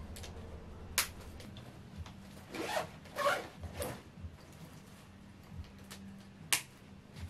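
Small handling sounds over a steady low hum: a sharp click about a second in, two short rasps around three seconds in, and another sharp click near the end.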